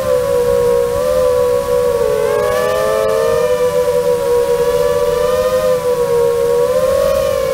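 Brushless motors and propellers of an FPV quadcopter whining, heard close from a camera mounted on the drone. The pitch wavers up and down with the throttle and briefly splits into two tones about halfway through as the motors change speed unevenly.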